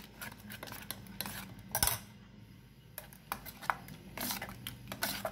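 Steel spoon clinking and scraping against a stainless steel bowl while beating an egg and onion omelette mixture, in irregular strokes with a quieter lull of about a second midway.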